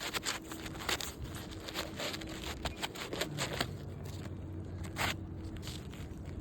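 Asphalt roof shingle being worked into place under the course above: a run of short, irregular scrapes and crackles as its gritty surface rubs against the shingles around it.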